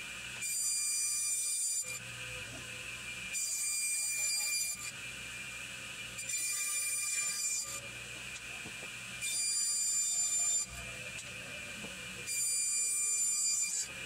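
A 1959 resaw running while cutting cedar slabs into boards. A steady whine underneath is joined by a louder, high squeal that lasts about a second and a half and comes back every three seconds, five times.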